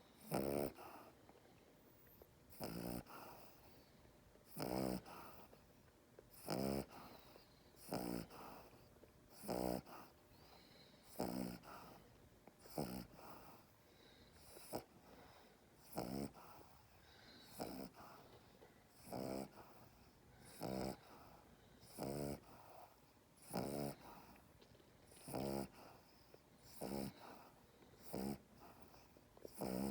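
A dog snoring while held in someone's arms: the owner's "inverted reverse snore". Each breath gives a short pitched snore, repeating steadily about every second and a half.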